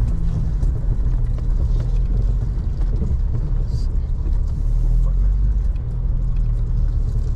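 Jeep LJ's 4.0-litre inline-six running at a steady cruise while the tyres roll over a dirt road, heard from inside the cab as a steady low rumble.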